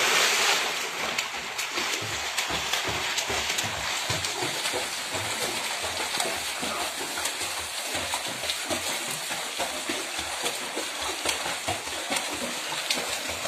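A boy's body hitting the water with a loud splash at the very start, then continuous splashing and sloshing as he swims, with irregular slaps of his strokes and kicks.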